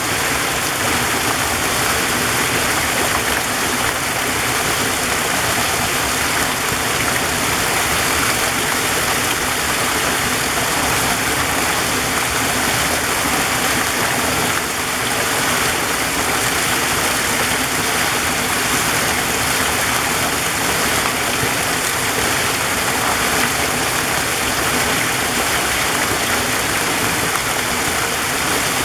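Waterfall in a forest stream, water rushing and splashing in a steady, unbroken hiss.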